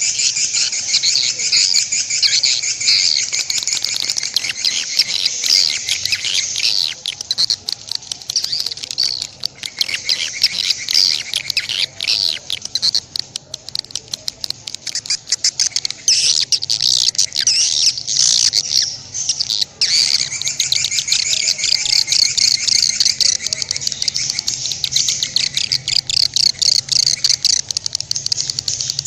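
Songbird singing a fast, continuous chattering song of rapid high notes, with a couple of brief lulls partway through.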